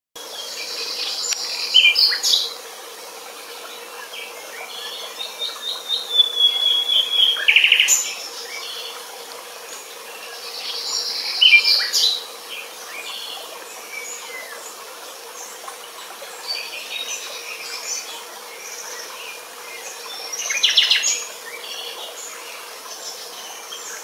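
Eurasian golden oriole singing: short whistled and buzzy phrases every few seconds.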